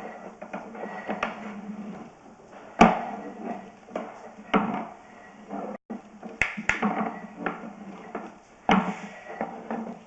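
Irregular clunks and knocks, one every second or two, as a sewer inspection camera's push cable is pulled back out of the line, over a steady low hum.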